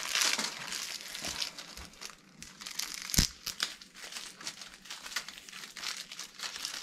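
Cellophane wrapper of a 1985 Topps cello pack of baseball cards crinkling and crackling as it is worked open slowly by hand, with one sharp click about three seconds in.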